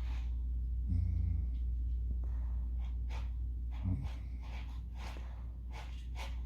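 Someone snoring in sleep: a low, fluttering snore on the in-breath about a second in and again about four seconds in, with breathy exhales between them, over a steady low hum.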